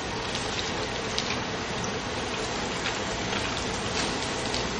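Cornstarch-coated egg tofu deep-frying in a wok of hot oil: a steady, dense sizzle with small scattered crackles, the oil kept on high heat so the surface turns crisp.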